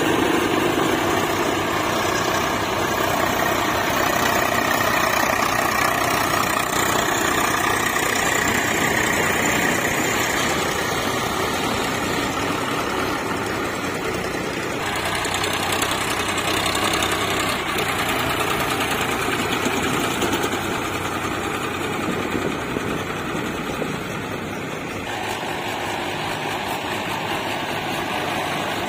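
Diesel tractor engine running steadily for a long stretch, its sound shifting slightly about halfway through and again near the end.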